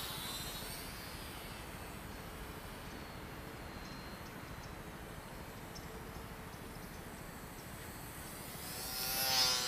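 Small electric motor and propeller of a Volantex Mini Trainstar micro RC airplane in flight: a thin high whine that fades as it flies off, then grows louder near the end as it passes close, its pitch dropping.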